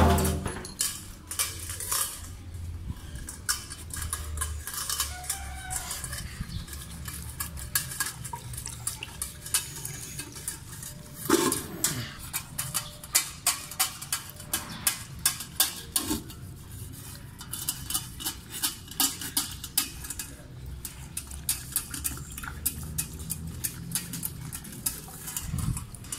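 Husky puppy lapping water from a stainless steel bowl, tongue and chain clicking against the metal in a run of quick clicks, several a second at times. One louder knock about halfway through.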